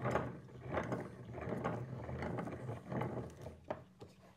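Bench vise being wound shut on a wooden dowel: irregular scraping and rattling of the screw and handle, dying away about three and a half seconds in.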